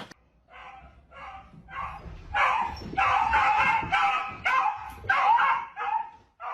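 A dog barking over and over in short calls, getting louder from about two and a half seconds in.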